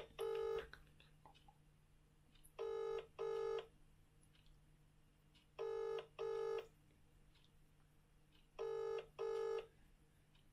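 British-style double-ring ringback tone on a smartphone on speakerphone: four pairs of short tones about three seconds apart, the called number ringing with no answer yet.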